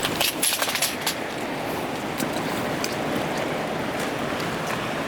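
Steady rush of flowing river water, with a cluster of sharp clicks in the first second.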